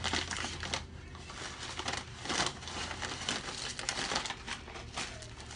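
Paper fast-food bag rustling and crinkling as it is handled and opened, with a paper-wrapped food item pulled out of it.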